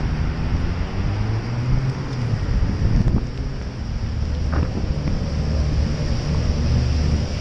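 Wind buffeting the microphone of a camera on a moving bicycle, a steady low rumble over an even hiss of tyres on the wet road.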